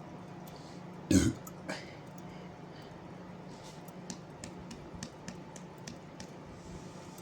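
A single short, loud burp about a second in, from gas built up after drinking carbonated sparkling water, with a smaller sound half a second after it. A few faint clicks follow.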